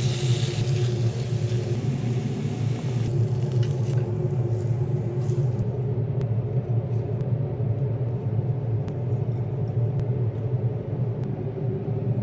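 Steady low mechanical hum, with a higher hiss over it that dies away about five and a half seconds in; faint light ticks follow.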